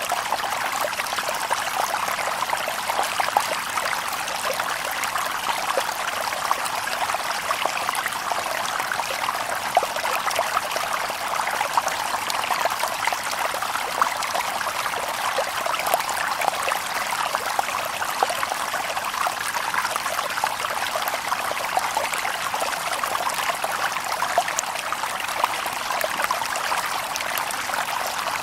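A shallow stream babbling over stones, with steady splashing and trickling and many small droplet ticks.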